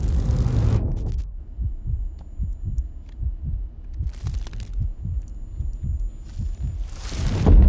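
Film sound design: a heavy low rumble fades away about a second in, followed by soft low thumps about three a second under a faint high ringing tone. Near the end a rising rush swells into another loud low rumble.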